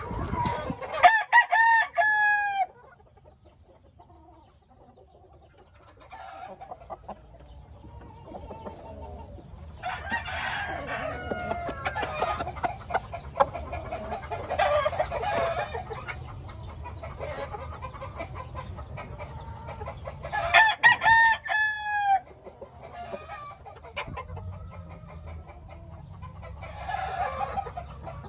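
Gamefowl roosters crowing twice, once about a second in and again about twenty seconds later, each crow ending in a falling drawn-out note. In between, chickens cluck on and off.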